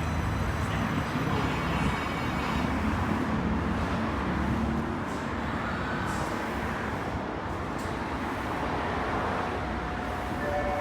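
Steady rumble of an Osaka Metro Midosuji Line train moving at the station platform, with a faint rising-and-falling whine about six seconds in.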